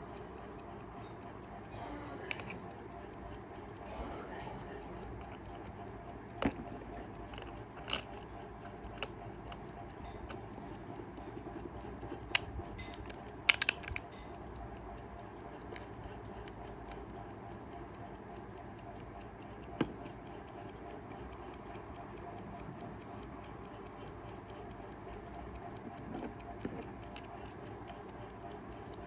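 Kaiser 4 Rubis travel alarm clock ticking fast and evenly, its movement running. Several sharper clicks and knocks are scattered through, with a small cluster about halfway.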